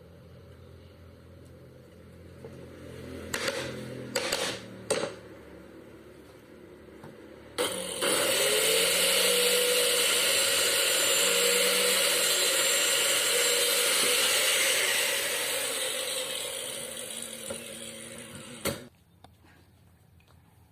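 A few knocks, then a power tool running for about eleven seconds, likely working on cabinet wood. It starts abruptly, runs with a steady whine, eases off a little and cuts off suddenly.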